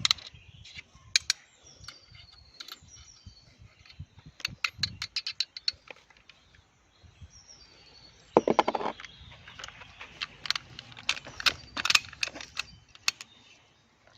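Irregular sharp clicks and clacks. They include a quick run of about seven a second near the middle and a denser clatter with a dull knock a little past halfway. Birds chirp faintly.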